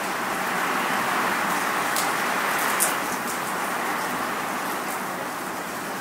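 Wind and rain: a steady rushing that swells into a gust over the first few seconds and then eases off, with a few sharp ticks, the loudest about three seconds in.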